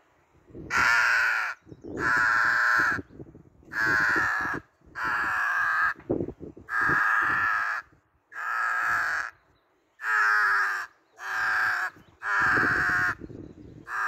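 Mouth-blown crow call sounding a series of about nine crow-like caws, each under a second with short pauses between. It is blown with air from the diaphragm and a growl into it, the technique that makes it sound like a crow rather than a thin cheek-blown note.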